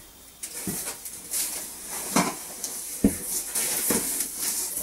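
Packaging being handled while unboxing: molded pulp inserts and cardboard scraping and rustling, then a machine in a protective plastic bag being lifted out of the box, with a few knocks of packing against the carton, sharpest about two and three seconds in.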